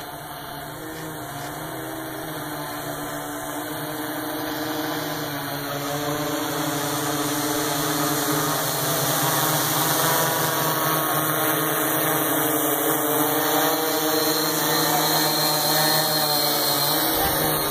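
K-850 multirotor drone's electric motors and propellers whirring steadily in flight, with a few steady tones. The sound grows louder over the first half as the drone comes down closer, then holds.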